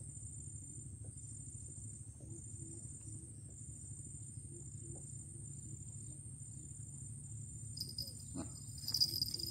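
Insects shrilling with a steady, even high-pitched buzz over a low background rumble, with a few faint clicks near the end.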